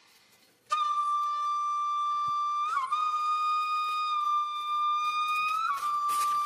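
Background music: a flute comes in after a moment of silence and holds long, steady notes, sliding briefly between them twice.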